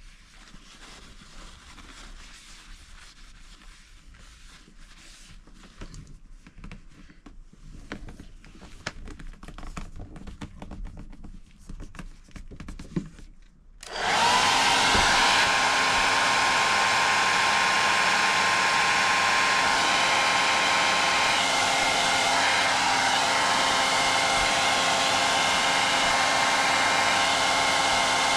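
A handheld hair dryer switched on about halfway through and running steadily with a whine over the airflow, aimed at plastic caravan window trim. Before it starts, faint rustling and small clicks of wiping and handling.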